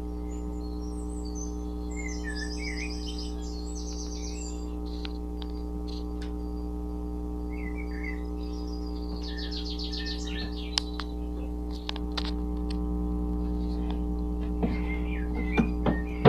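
Steady electrical hum, with high chirping calls twice, about a second in and again around nine seconds in, and a few sharp clicks near the end.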